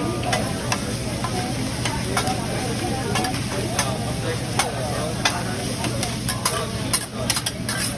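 Food sizzling on a hibachi grill's hot steel griddle, with frequent sharp clicks and taps of metal spatulas working the food across the surface.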